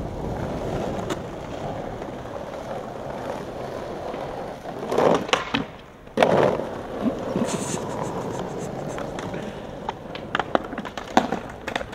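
Skateboard wheels rolling steadily, then two loud impacts about a second apart with a short lull between, the pop and landing of a trick. The board rolls on, with several short sharp clacks near the end.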